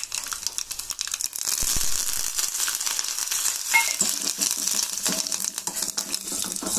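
Hot oil sizzling and crackling in a small steel pot as curry leaves go into a tempering of popping mustard and cumin seeds, with a spoon stirring through it. The sizzle grows louder about a second and a half in.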